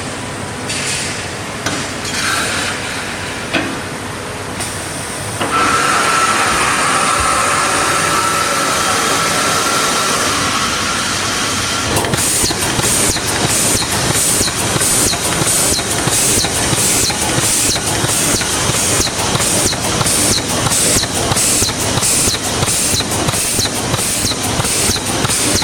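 Reinforcing mesh welding machine running, with loud industrial noise and a steady whine. About halfway in, a regular clatter of strokes starts at about two a second as the line welds and advances the heavy steel mesh.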